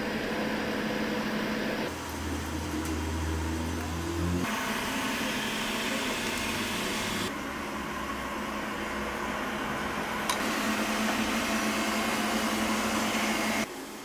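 VANiGO robot vacuum running, a steady whir of motor and brushes. Its pitch and loudness change abruptly several times, with a low hum for a couple of seconds near the start.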